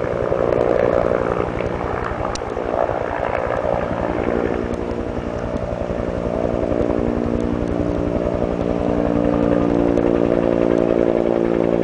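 Bell firefighting helicopter with a slung water bucket flying overhead: steady rapid rotor chop with a turbine whine, growing a little louder in the second half as it approaches.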